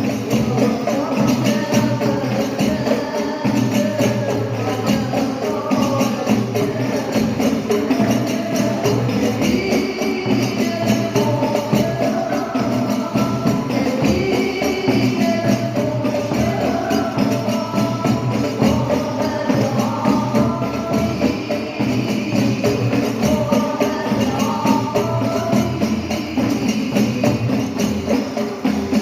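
Hadroh music: a group of women singing an Arabic devotional qasida in unison over a steady rhythm of rebana frame drums with jingles.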